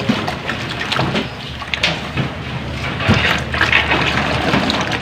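Hands mixing water into a mound of flour in a stainless-steel basin: irregular wet mixing and rustling of the dough at the start of kneading. A faint steady low hum runs underneath.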